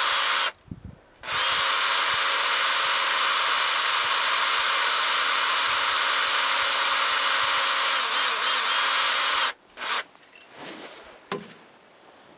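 Cordless drill running at a steady speed, boring slowly into a broken-off screw threaded into the engine block. It stops briefly about half a second in, runs again for about eight seconds, then stops, followed by a few light clicks.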